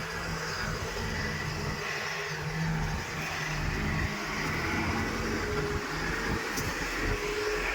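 Heavy-machinery diesel engine running steadily, with a faint higher whine twice in the second half.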